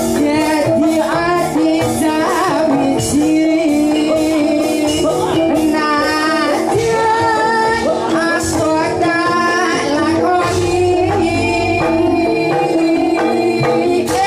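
Live jathilan music played through loudspeakers: a Javanese ensemble with held melodic tones and a steady pattern of kendang hand-drum strokes. A woman sings the melody over it, clearest from about halfway through.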